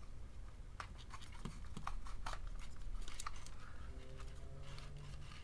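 Faint, scattered clicks and scrapes of a small plastic housing being pried apart with a small screwdriver and handled, its wired circuit boards sliding out.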